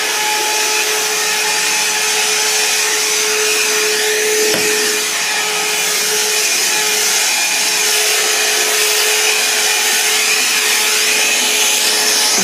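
Shark cordless 15.6-volt handheld vacuum with a brush roll running steadily as it cleans carpeted steps: an even motor whine over a rushing hiss. A brief knock comes about four and a half seconds in.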